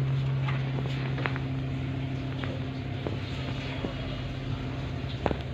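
Steady low motor hum, with scattered small clicks from an Alexandrine parakeet's beak biting into a green chilli.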